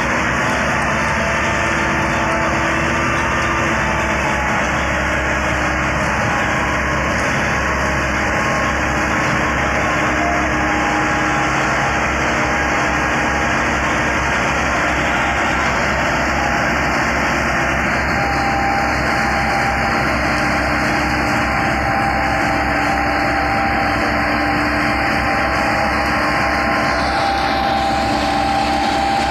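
Two farm tractors' diesel engines running hard together under heavy load as they drag a large sugarcane load through a soft field. The noise is loud, steady and continuous.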